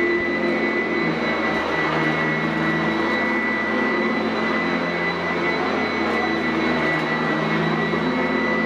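Sanitaire SC899F commercial upright vacuum cleaner running steadily over carpet: a constant rush of air with a steady high motor whine.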